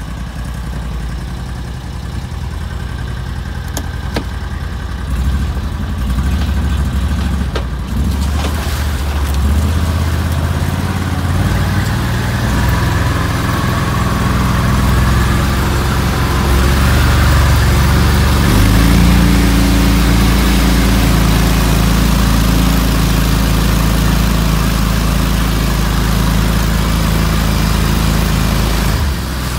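Argo Frontier 600 6x6 amphibious ATV's engine running steadily under load as the machine drives into a pond and swims across, its spinning tires churning the water. The churning wash grows louder after the first several seconds, and the engine note shifts and strengthens a little past halfway.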